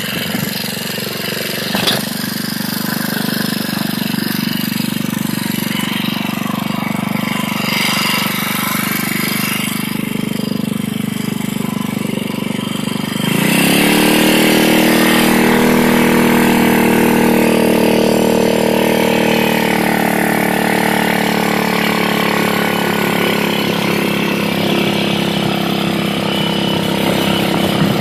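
Whizzer motorbike's single-cylinder four-stroke engine running at low revs, then, about halfway through, revving up sharply as the prototype automatic clutch takes up drive and the bike pulls away, settling into steady, louder running at road speed.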